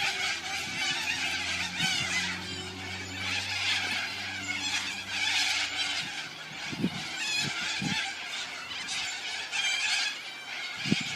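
A flock of cockatoos screeching, with harsh, overlapping calls repeating throughout. A steady low drone runs underneath for the first half and stops about six seconds in.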